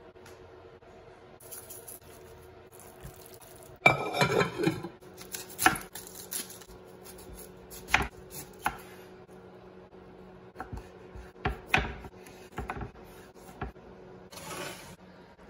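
Kitchen knife slicing onion and green bell pepper on a wooden cutting board: sharp knocks of the blade striking the board, a quick run of cuts about four seconds in, then single chops about a second apart.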